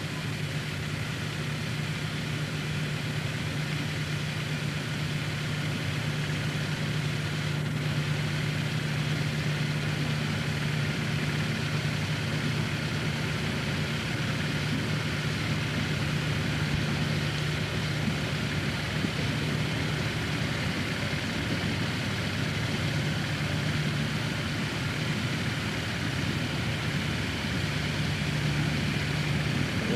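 Steady low mechanical hum with a constant hiss over it, unchanging throughout, as heard on the live soundtrack of an old 8mm sound film.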